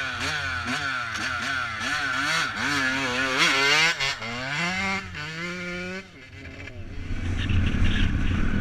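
Yamaha YZ125 two-stroke dirt bike engine revved in quick repeated blips, then pulling away with a rising pitch and holding steady. About six seconds in it drops off sharply, and a lower, rougher rumble follows.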